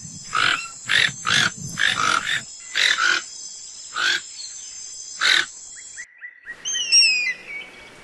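Toucan calling: a run of about ten short, harsh calls, unevenly spaced, over a steady high-pitched tone. About six seconds in, the toucan stops and a bird of prey gives several thin, high calls, each falling in pitch.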